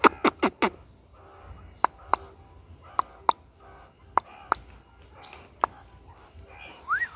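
A series of short, sharp clicks: four in quick succession, then mostly in pairs spaced a few tenths of a second apart. A warbling whistle starts near the end.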